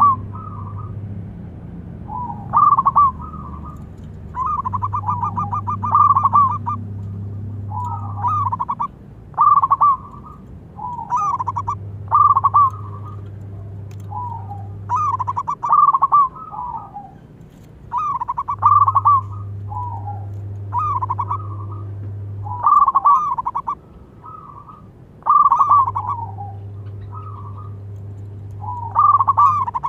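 Zebra dove (perkutut) cooing over and over, each phrase a quick stutter of notes, about one phrase every two seconds.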